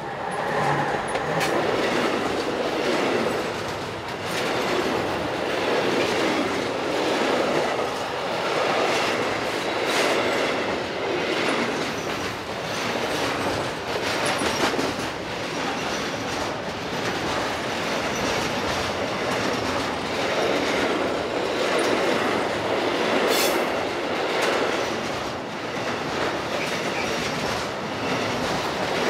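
A DB class 185 electric locomotive draws level and passes fast, then a long intermodal freight train of container and tank-container wagons rolls by. Its wheels make a steady rolling noise with repeated clacks over the rail joints, and there is a brief high squeal about three-quarters of the way through.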